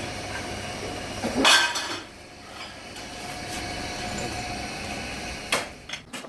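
Metal clanks and knocks from parts and tools being handled in a fan workshop: a loud one about a second and a half in and two more near the end, over a steady machine hum.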